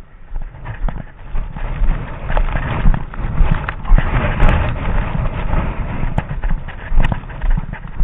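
Footsteps through deep fresh snow: a run of uneven steps, thickest in the middle seconds.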